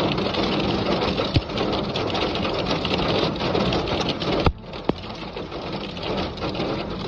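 Hail and heavy rain pelting down, a dense patter with many sharp clicks of hailstones hitting. It drops away abruptly about four and a half seconds in and carries on more softly.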